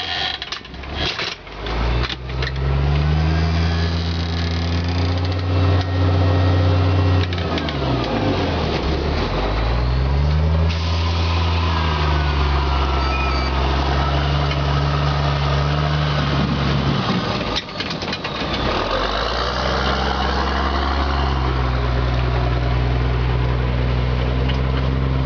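A close vehicle engine running, its pitch climbing about two seconds in, falling and climbing again around nine seconds, and dipping briefly before picking up again near eighteen seconds, as the vehicle moves off, slows and drives on.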